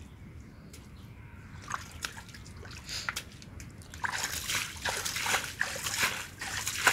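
Hands groping and scooping through shallow muddy water, splashing and sloshing. A few small splashes at first, then louder, almost continuous sloshing from about four seconds in.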